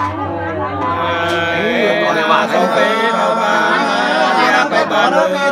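Two men singing hát sli, the Nùng folk love-song, unaccompanied in two overlapping voices, with long held notes that glide up and down in pitch.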